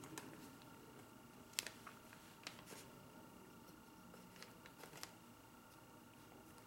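A few faint clicks and taps of small objects being handled on a table, the sharpest about one and a half seconds in, over a faint steady hum.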